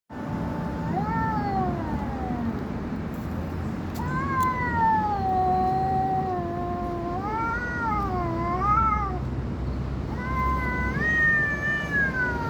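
Domestic cat yowling in about four long, drawn-out calls whose pitch wavers up and down, the longest lasting around three seconds.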